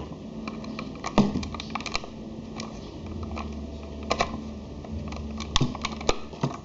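Plastic toy belt pieces clicking and tapping as they are handled and fitted together, an irregular scatter of sharp clicks.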